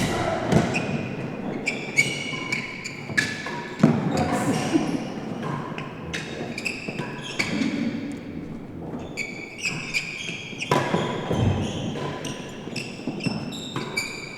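Real tennis rally: the solid ball struck by rackets and rebounding off the court's walls and floor, a quick, irregular run of sharp knocks, each with a brief ringing tail.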